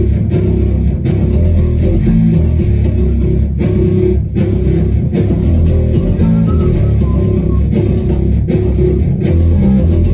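Loud amplified electric bass guitar, a Thunderbird-style bass, played as a low riff of picked notes with a few brief breaks between phrases, its tone being dialed in for recording.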